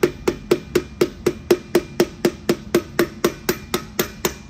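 Rapid, even tapping, about four strikes a second, each with a short ring: a piston and connecting rod being knocked down out of the engine's cylinder bore.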